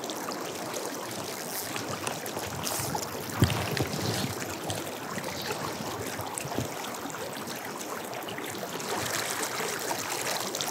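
Stream water running steadily over a rocky bed, an even rushing with trickling, and one brief knock about three and a half seconds in.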